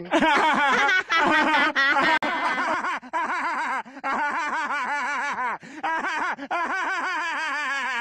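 A cartoon character's long giggling laugh, a rapid run of "heh-heh-heh" pulses, broken by short catches of breath.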